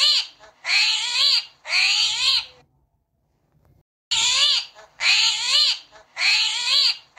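Meow-like animal calls repeated in quick runs, each call rising then falling in pitch, with a pause of about a second and a half in the middle.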